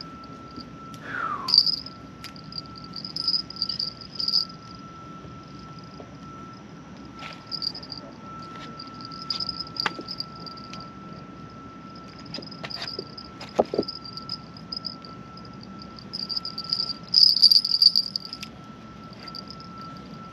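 Crickets and other night insects chirping in high, pulsing trills, loudest about seventeen seconds in, over a steady high tone. A few faint clicks.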